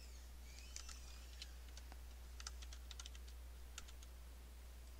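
Faint keystrokes on a computer keyboard: an uneven run of light clicks over about three seconds as a short word is typed.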